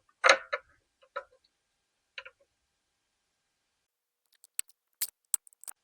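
Sharp clicks and taps of tools on a hard plastic connector clip as the purge solenoid valve's white clip is pried at: a few soft handling noises at first, then a quick cluster of five or six crisp clicks in the last second and a half.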